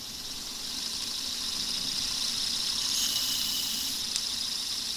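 Small electric motor spinning a car timing-belt tensioner pulley through a thin belt: a steady high whir with a faint low hum, growing slowly louder, with a couple of faint ticks near the end.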